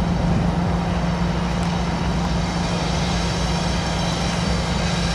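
Diesel locomotives of a CSX freight train running, a steady low engine drone over a rumble.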